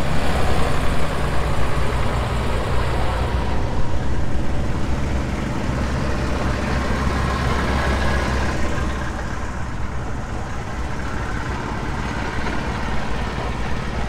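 Engine of a vintage International Harvester Farmall tractor running as it drives slowly past, a steady low rumble that eases after about nine seconds.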